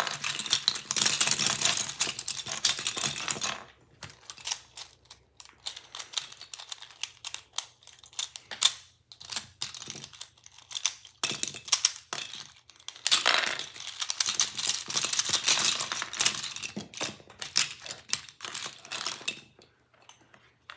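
Plastic Rubik's cube pieces clicking and clattering as a cube is put back together by hand. The clatter is dense at the start and again for several seconds past the middle, with sparser single clicks in between.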